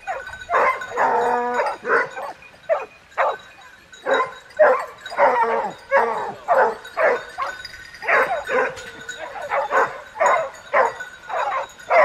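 A pack of hunting hounds giving tongue, many dogs barking and yelping over one another several times a second, with a longer drawn-out bay about a second in.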